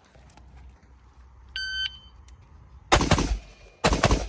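Shot timer's start beep, then an AR-15-style rifle fired in two rapid strings of several shots each, the first starting about a second after the beep.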